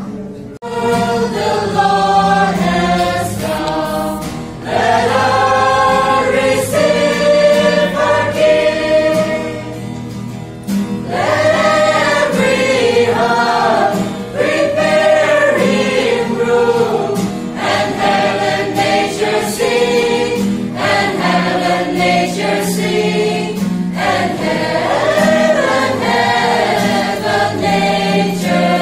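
A group of young men and women singing a Christmas carol together, accompanied by a strummed acoustic guitar.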